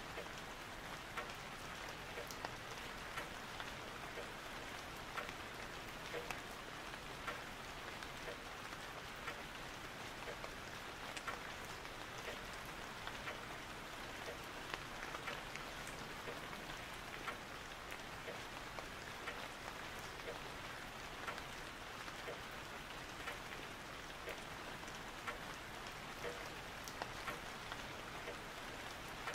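Steady rain, an even hiss with many scattered drop taps.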